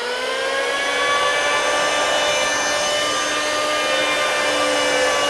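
Electric handheld power planer running at full speed, a steady high whine whose pitch settles in the first second after spin-up, as it takes shaving passes along a wooden edge to cut a bevel.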